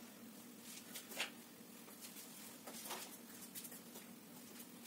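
Quiet room tone with a steady low hum and a few faint, brief knocks.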